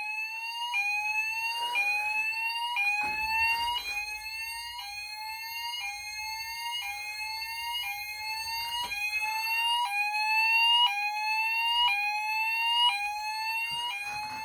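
Fire alarm sounder in alarm after a smoke detector was set off with test spray, giving a rising sweep tone that repeats about four times every three seconds. A steady high tone runs underneath, with a few brief knocks.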